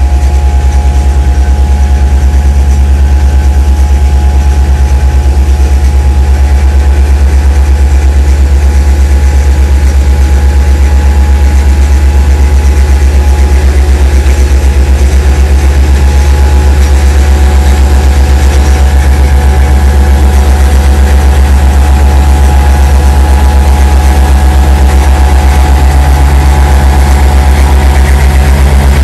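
Engine of a 2.5-tonne ride-on compactor roller running steadily while compacting a gravel path, with a deep, fast, even pulsing.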